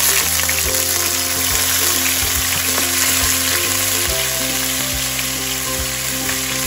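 Sliced shallots frying in hot oil in a nonstick pan: a steady sizzle, with a slotted spatula stirring them.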